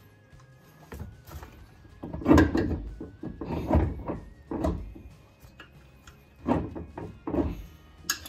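Heavy metal clunks and knocks as a new rear strut is worked into place on a 2009 Toyota Camry's suspension: about five separate thumps spread over several seconds.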